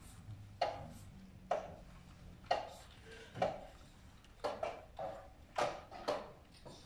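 Sharp, irregular clicks of draughts pieces being set down on boards and game-clock buttons being pressed during blitz play, about ten in a few seconds, each with a short ring.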